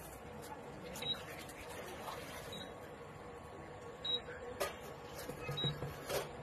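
Usha Cookjoy induction cooktop giving short, high, faint beeps about every second and a half, the warning an induction hob gives when no pan sits on the plate, over a faint steady hum. A few light clicks and knocks come in between.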